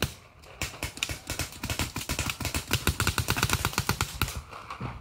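Adrenalin Featherlite Angel LCD paintball marker firing rapid strings of shots, many sharp pops a second, briefly easing off near the end.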